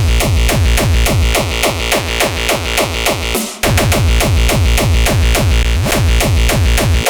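Electronic dance music from a DJ mix: a steady, driving drum-machine beat with a heavy kick and bass under fast ticking hi-hats. The low end drops out for an instant a little past halfway, then the beat comes straight back in.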